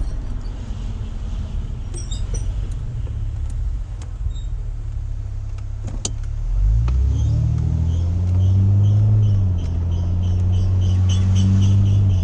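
2009 Acura TL SH-AWD's V6 and road noise, rising as the car speeds up about halfway through and then holding steady. Near the end a high-pitched squeal comes in rapid, even pulses: the brakes squealing despite new StopTech drilled and slotted rotors and Posi-quiet pads.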